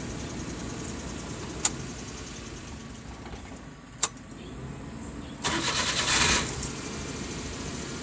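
Car engine idling steadily. Two sharp clicks come a couple of seconds apart, and a loud hissing burst of about a second comes a little past the middle.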